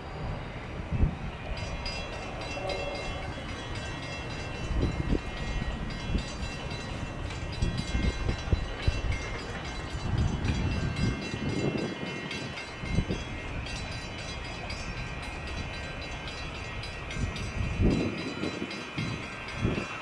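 Passenger train rolling past: a steady low rumble with irregular knocks from the wheels, and thin high whining tones above it.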